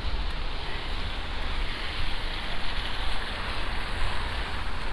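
Steady rushing outdoor noise in a snowstorm, with an uneven low rumble of wind buffeting the microphone; the rushing swells a little in the middle.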